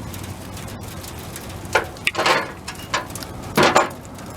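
Hand snips cutting through a plastic battery terminal protector: several short, sharp snips, starting about a second and a half in.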